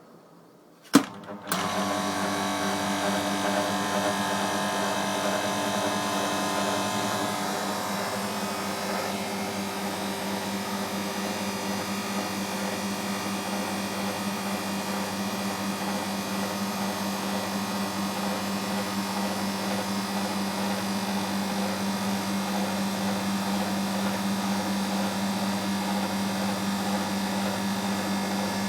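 Bristol refrigeration compressor in a Fabdec condensing unit switching on with a sharp click about a second in, then starting and running with a steady hum.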